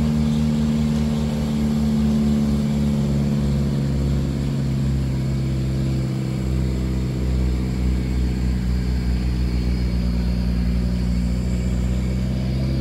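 Truck engine running at a steady speed, heard from inside the cab while driving, with an even pitch throughout.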